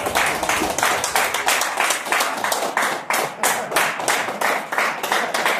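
A small group of people clapping their hands in applause, a quick, steady run of claps.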